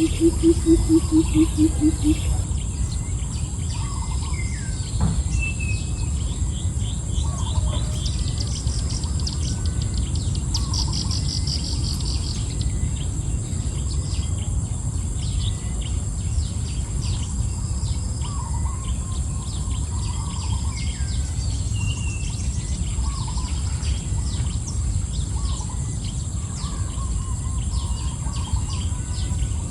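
Wild birds chirping and calling, with repeated quick trills and scattered whistled notes, over a steady high insect buzz and a steady low rumble. A brief series of rapid, evenly pulsed low notes sounds in the first two seconds.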